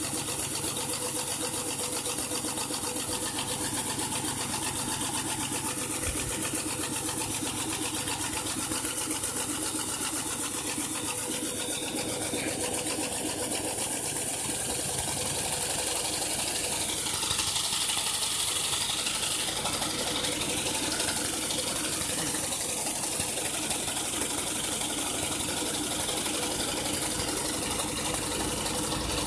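Live-steam model locomotive's engine running on test, a fast steady rhythmic clatter of exhaust beats and motion with a hiss of steam that grows louder about seventeen seconds in.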